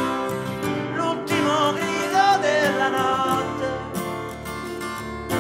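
Pop-rock band playing an instrumental passage, with strummed guitar chords over sustained chords. A wavering melody line rises and falls through the middle.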